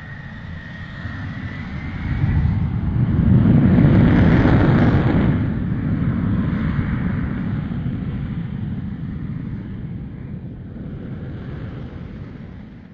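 A deep rumbling roar that swells to its loudest about four seconds in, then slowly dies away, with a faint high steady tone in the first two seconds.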